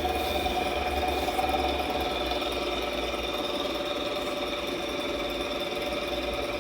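Shop vac motor running steadily inside a homemade upright vacuum cleaner: a constant whine over a low hum.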